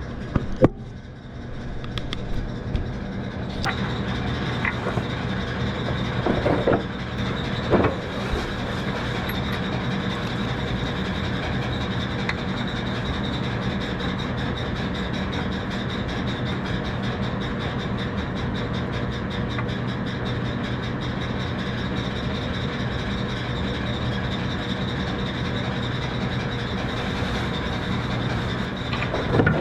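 A machine running steadily with a low hum and a fast, even rattle. A few sharp metallic knocks fall in the first eight seconds, while engine mounting bolts are being fitted.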